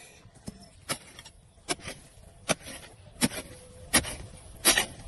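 Short-handled hoe chopping into dry, crumbly soil as a pit is dug: a steady series of dull strikes, about one every three-quarters of a second.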